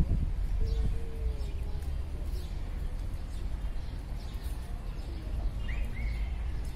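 Outdoor ambience: a steady low wind rumble on the phone's microphone, with a few scattered bird chirps, one rising chirp about six seconds in.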